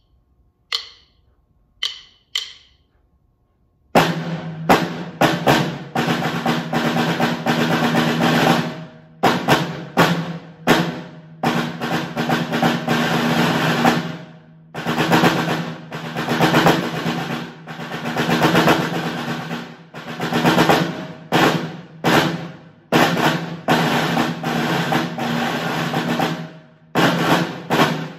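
Concert snare drum played with sticks: a few sharp, light clicks in the first few seconds, then from about four seconds in long sustained rolls broken by short gaps and single accented strokes.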